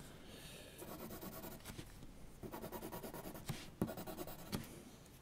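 2B mechanical graphite pencil hatching on paper: quick, short strokes scratching in rapid succession, with a few louder strokes in the second half.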